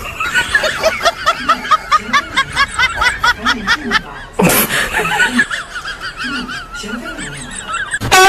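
Snickering laughter, likely an added laugh sound effect: a quick run of high giggles at about four a second, broken about halfway by a short loud burst of noise, then softer giggling.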